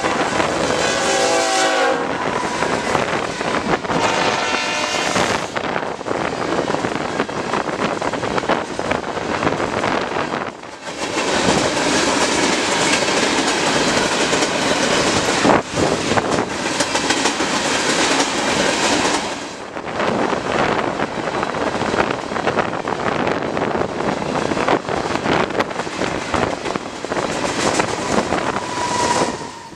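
BNSF diesel freight locomotives sounding their horn in two blasts as they pass close by, at the head of a tank train. This is followed by the steady rumble and clatter of the loaded tank cars' wheels rolling over the rails.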